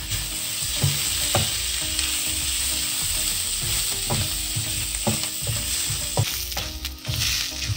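Soya chunks frying in oil in a pot with a steady sizzle, while a wooden spoon stirs them, scraping and knocking against the pan a dozen or so times.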